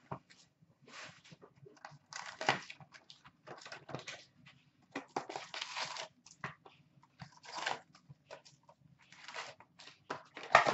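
Cardboard and packaging rustling and crackling in irregular bursts as a sealed box of hockey trading cards is torn open and its packs are lifted out.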